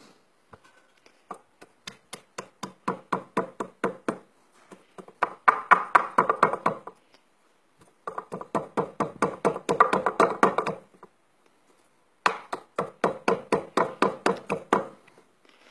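A pestle pounding animal fat and oil in a mortar, working them together into sivo, a tallow grease for oars. Quick strokes come at about five or six a second, in four runs with short pauses between them.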